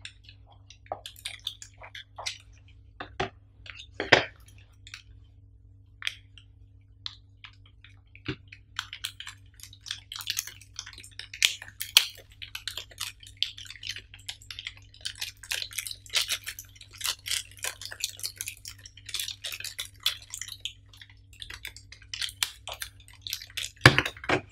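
Small cardboard box and its contents handled, with scattered clicks and a soft thump, then a clear plastic bag crinkling and rustling for much of the time as it is opened and handled, with a sharp knock near the end. A faint steady low hum lies underneath.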